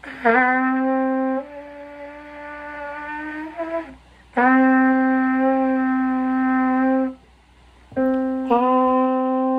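Trumpet played by a learner: a slow phrase of long held notes with short gaps between them, the first note bending slightly up into pitch as it starts. The longest note is held for nearly three seconds in the middle.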